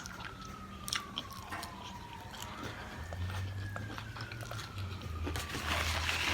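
Close-up chewing and biting of a cheese dog topped with crunchy Flaming Hot Funyuns, with scattered sharp wet mouth clicks.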